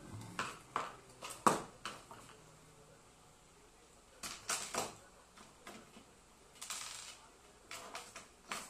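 Scattered clicks and knocks of a screwdriver and hands on an electric kettle's plastic base during repair, the loudest knock about one and a half seconds in and a quieter stretch in the middle.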